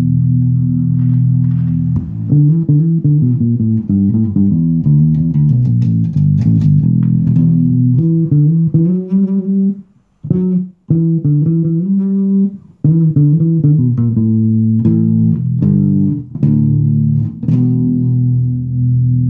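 Rickenbacker 2050 El Dorado electric bass with flatwound strings, played through an amp with its treble tone control turned down: a running line of plucked notes with two brief breaks, ending on held low notes.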